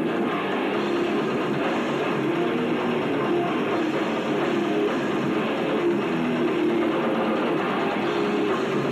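Death metal band playing with heavily distorted electric guitars, a dense, loud, unbroken wall of sound that comes across muffled.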